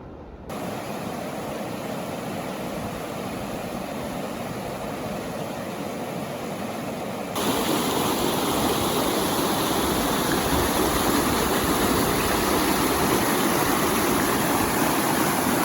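Deschutes River rapids: a steady rush of white water, loud, jumping louder about half a second in and again about halfway through.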